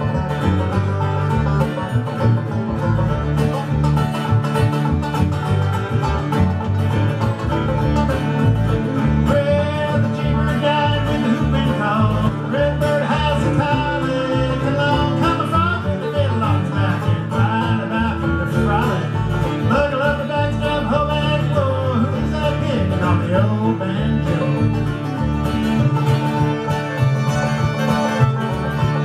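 Old-time string band playing a fast instrumental tune: banjo and guitar pick a steady driving beat, while a fiddle carries the melody above it.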